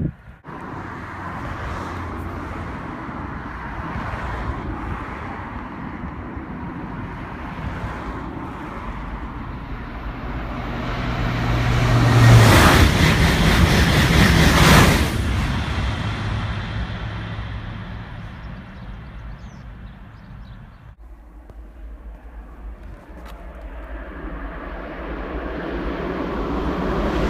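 TGV high-speed train passing at speed on the line below: a rush of wheel and air noise builds gradually, peaks about halfway through, then fades. After a break, a second high-speed train is heard approaching, growing louder toward the end.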